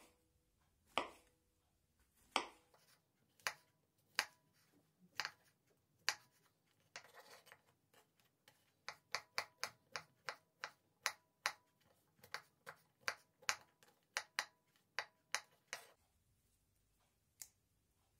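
Kitchen knife cutting a button mushroom on a wooden cutting board: sharp knocks of the blade on the board, about one a second while slicing, then after a short rasp a quicker run of chopping knocks about three a second that stops a couple of seconds before the end.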